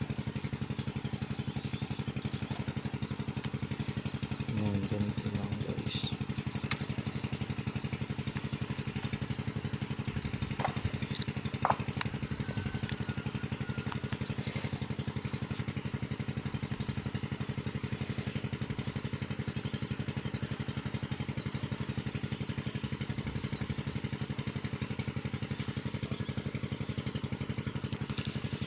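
A small engine running steadily, with a few sharp clicks over it, the loudest about twelve seconds in.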